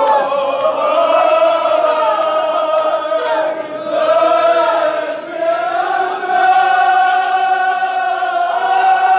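Marsiya, a Kashmiri Shia lament, chanted by many men's voices together in long, drawn-out notes that slowly rise and fall.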